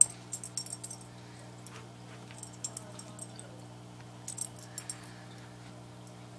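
A puppy scrabbling on a hardwood floor with a slipper over her head: scattered bursts of light clicking and tapping from her claws and the slipper, with one sharp knock right at the start. A steady low hum runs underneath.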